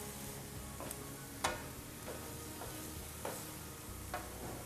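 Diced chicken fillet and mushrooms sizzling in oil in a frying pan over a gas flame: a steady faint hiss, with about five short scrapes and taps of a wooden spoon stirring them.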